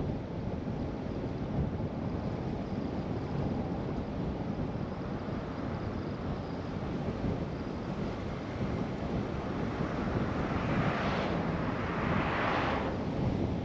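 Steady tyre and wind noise of a car driving along a road. Near the end an oncoming car swishes past in a louder hiss that swells twice.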